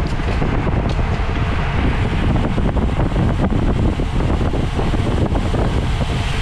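Steady wind rushing over the microphone, a heavy low rumble from a road bicycle moving at race speed.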